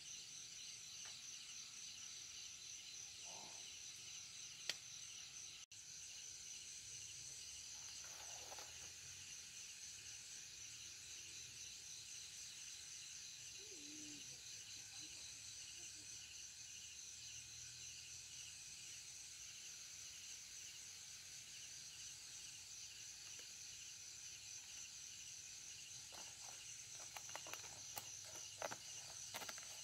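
Steady chorus of night insects such as crickets, a high shrill trill. Near the end come a few light knocks and rustles as the woven bamboo steamer basket is handled.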